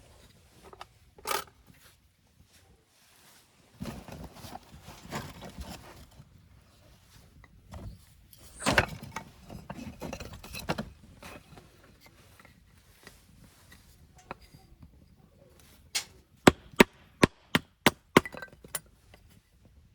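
Firewood being broken up by hand: a sharp crack about a second in, rough scraping and rustling of wood, then a quick run of about seven sharp cracks near the end.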